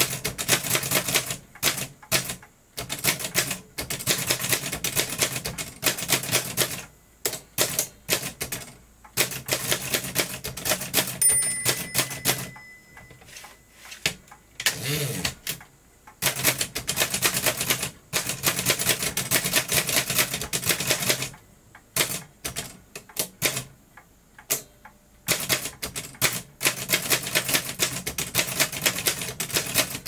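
An 1892 Chicago No. 1 type-sleeve typewriter being typed on: quick runs of sharp keystroke clacks broken by short pauses, with a brief ringing tone about eleven seconds in.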